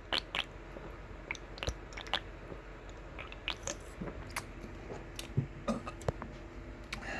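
A person sipping a coffee drink and tasting it: scattered small wet clicks and smacks of the mouth and lips, with swallowing.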